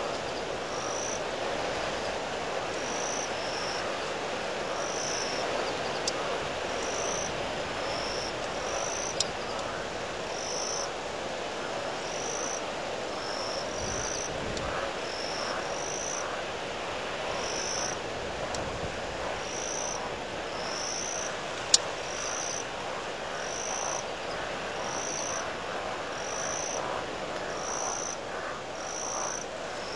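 Windstorm wind rushing steadily over the microphone, with a low rumble from a gust about halfway. Short high chirps from a calling animal repeat about once a second, and a few sharp clicks stand out.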